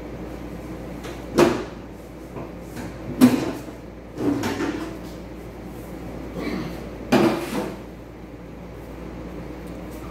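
A handful of sharp knocks and clunks at irregular intervals, the sound of parts being handled on the front of a red hot-rod roadster, over a steady low hum.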